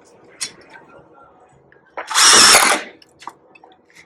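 A power drill briefly drives a self-tapping screw into a diamond-plate steel threshold, in one short run about two seconds in, with a few faint knocks around it.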